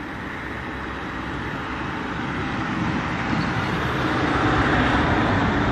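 A motor vehicle passing on a nearby street: steady engine and road noise that slowly builds over several seconds and starts to ease near the end.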